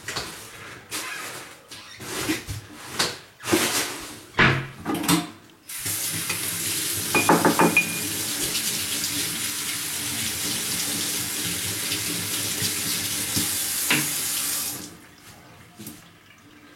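Several knocks and clatters of objects being handled, then water running from a tap into a sink for about nine seconds before it is turned off.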